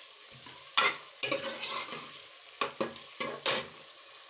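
Onion, garlic and tomato sizzling in hot oil in a metal pot while a metal spoon stirs them, scraping and knocking against the pot about six times.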